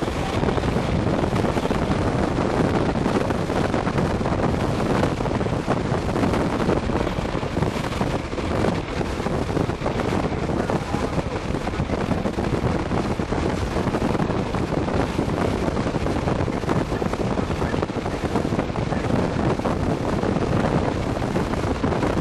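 Steady rush of wind buffeting the microphone, mixed with the road noise of a vehicle driving along.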